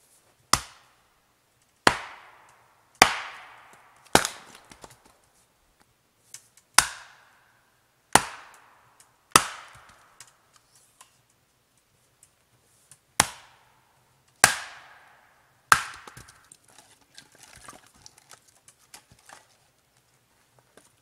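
An axe splitting firewood on a chopping block: about ten sharp strikes, mostly a second or so apart, with a pause in the middle. The last few seconds hold the lighter clatter of split pieces being gathered up.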